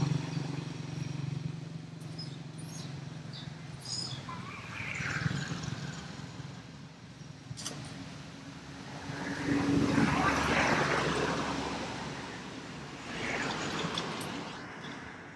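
Motor vehicles passing one after another, each one swelling and fading over a couple of seconds. The loudest pass is about ten seconds in.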